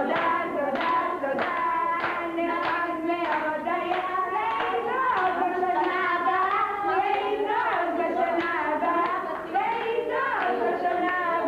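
Several people clapping their hands together in a steady rhythm while voices sing along.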